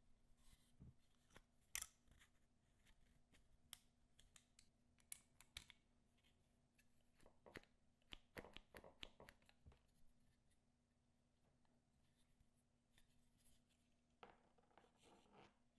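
Faint, scattered clicks and scratches of small handwork, with a short rustle near the end, over a faint steady hum.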